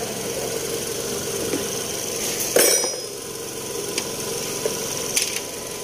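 Freshly installed replacement engine in a 2009 Toyota Camry idling steadily, with one sharp metallic clink about two and a half seconds in and a couple of lighter taps later.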